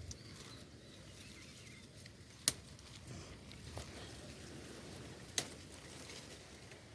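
Footsteps rustling through dry forest undergrowth, with two sharp cracks about three seconds apart, as of twigs snapping underfoot.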